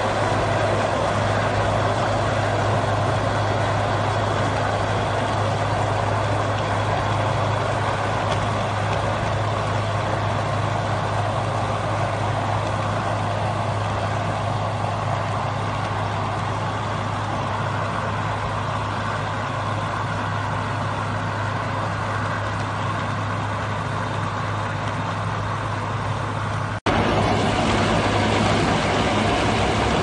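A Cat 432F2 backhoe loader's diesel engine runs steadily at working speed, driving a hydraulic chain-saw attachment that is cutting into a stone block. The result is a constant low engine hum under a dense, even grinding noise, with one momentary break in the sound near the end.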